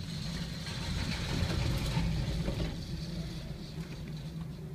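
Cable car cabin running down its cable, heard from inside the cabin: a steady low mechanical hum with a faint high whine over it, swelling louder about a second in and easing off toward the end.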